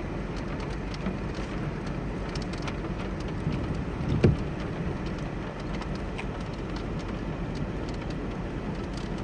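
Raindrops ticking at random on a vehicle over a steady low rumble, with one louder thump about four seconds in.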